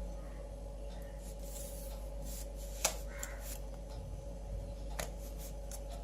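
A plastic selfie stick being handled: light rubbing and rustling with two sharp clicks, about three seconds in and again about five seconds in, over a steady low hum.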